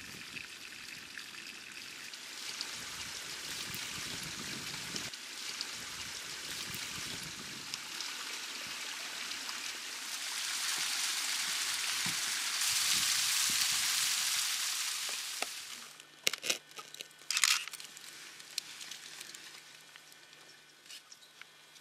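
Steady outdoor rushing hiss that grows louder about ten seconds in and drops away suddenly near sixteen seconds, followed by scattered sharp clicks and knocks.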